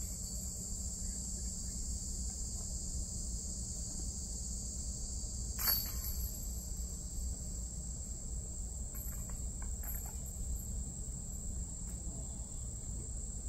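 Insects chirring in one steady, high-pitched drone, with a low rumble underneath and a single sharp click about six seconds in.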